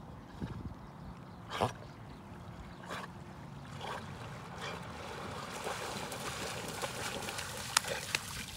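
Water splashing and sloshing as a black Labrador retriever swims in and then runs out through shallow water, the splashing growing louder over the last few seconds. There is a short sharp sound about a second and a half in, and two sharp clicks near the end.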